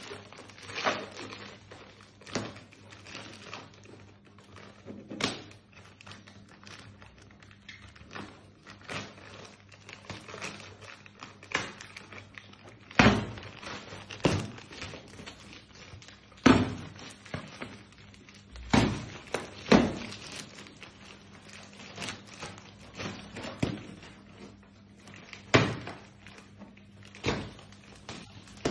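Plastic wrap on a rolled memory foam mattress being cut and pulled off by hand: irregular sharp crackles, snaps and thumps, a few of them loud.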